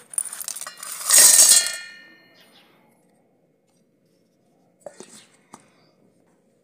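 Chunks of crystallised rock sugar (mishri) poured from a steel bowl into a steel mixer-grinder jar: a clattering rattle in the first two seconds, with the steel jar ringing and fading after it. A few light clicks near the end as the plastic lid is fitted on the jar.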